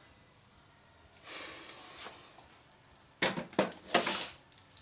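A soft rustle, then a quick cluster of sharp knocks and clatter from small hard objects being handled, about three seconds in.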